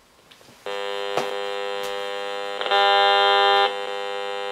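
Handheld RF meter's audio output buzzing steadily as it picks up the cordless phone base that has just been plugged in; the buzz starts sharply just under a second in and grows louder for about a second in the middle.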